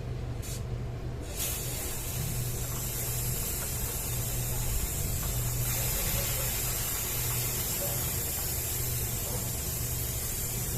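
Aerosol chain lubricant sprayed in one long continuous hiss onto a motorcycle chain, starting about a second and a half in. A steady low hum runs underneath.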